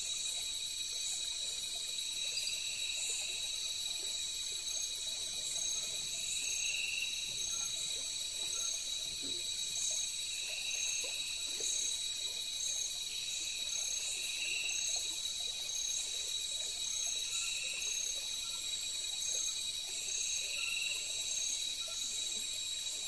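Night-time chorus of tropical forest insects, crickets among them, trilling steadily in several high pitches, with one softer call repeating every three to four seconds.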